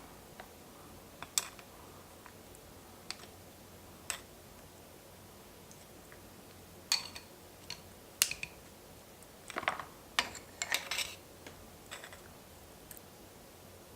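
Scattered sharp clicks and taps of eating utensils against a soup bowl, with a quicker run of clicking and rattling about ten seconds in.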